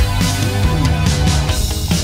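Background music with a drum beat and sustained bass notes.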